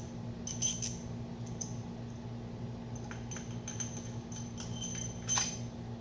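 Light metallic clinks and jingles of steel cylinder-head bolts and their washers being handled and set into the head of a BMW N20 engine. There are several small clinks, with a louder ring about five seconds in.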